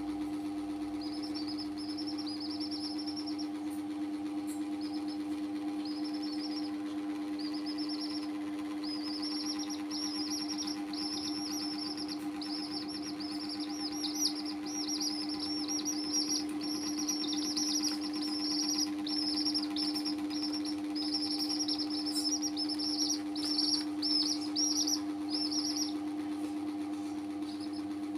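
Young chicks peeping in quick runs of short, high, downward-sliding calls, louder in the second half and stopping near the end, over a steady low hum.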